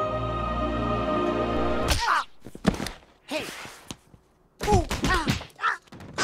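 An orchestral logo theme plays and breaks off about two seconds in. Then come a string of thuds and knocks, a brief rush of noise, and short squeaky cartoon cries that slide up and down in pitch.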